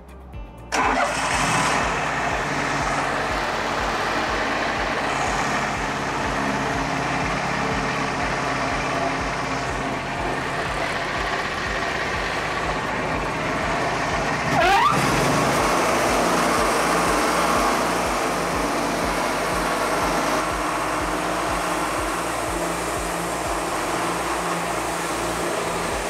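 Wood-Mizer LT40 Wide sawmill's engine starting about a second in, then running steadily. About halfway there is a brief rising whine and the running grows a little louder as the band blade is set going.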